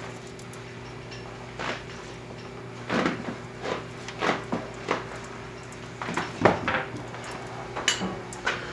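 Light knocks and clinks at irregular moments, about a dozen in all, over a steady low hum.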